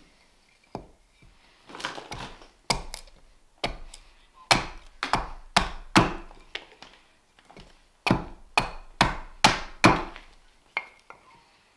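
Carving axe hewing a greenwood spoon blank braced on a wooden chopping stump: runs of sharp chopping strikes, about two a second, with a short pause near the start and another about two-thirds through.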